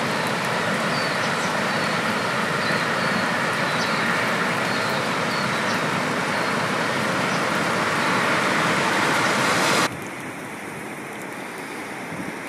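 Steady loud rushing roar of a river in flood. It cuts off abruptly about ten seconds in to a quieter, duller rush of floodwater.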